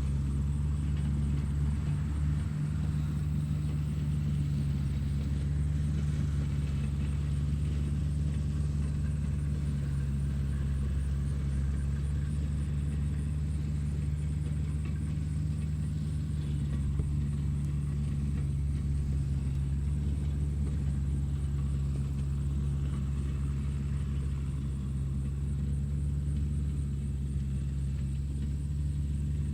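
Tractor engine running steadily at constant speed, a low even rumble.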